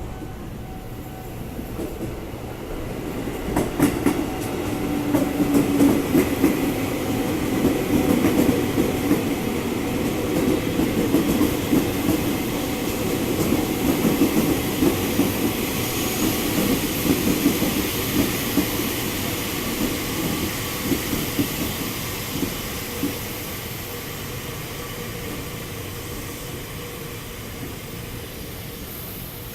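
Train passing, its wheels clattering over the rail joints; it swells about three seconds in and fades away over the last several seconds.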